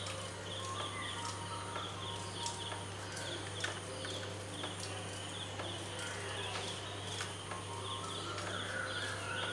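A bird chirping over and over in short high calls, over a steady low hum.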